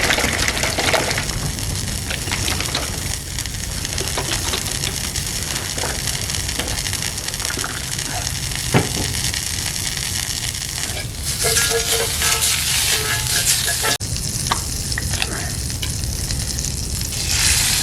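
Butter sizzling and crackling in a hot frying pan, with scattered sharp pops and louder spells of hissing about eleven seconds in and again near the end, as eggs go into the pan.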